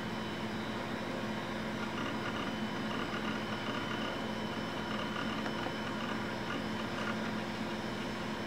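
Macintosh SE running with a steady hum from its cooling fan and spinning drive, with several constant tones, during startup while it loads its extensions.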